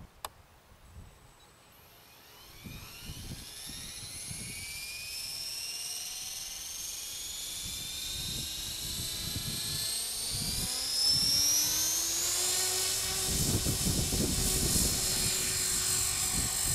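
Electric 450-size RC helicopter spooling up from rest: after a sharp click, the motor and rotor whine rises in pitch and loudness for about ten seconds and then levels off at flying speed. Near the end there is low rumbling as it lifts into a hover.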